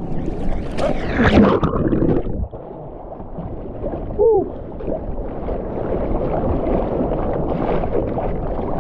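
Sea water splashing and sloshing right at a waterline action camera as a bodyboarder paddles in choppy water. The first two seconds hold loud splashing, then the sound turns suddenly muffled, with a short gurgling tone about four seconds in. After that comes a steady churn of water that slowly grows louder.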